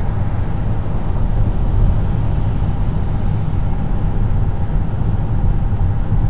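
Steady highway road noise heard from inside a moving car: low tyre and engine rumble at interstate speed, with a faint steady hum above it.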